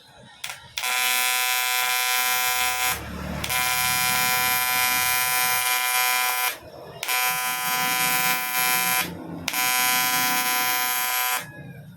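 TIG welding arc buzzing steadily on an aluminium motorcycle engine block. The arc is struck four times in runs of two to three seconds, with short breaks between.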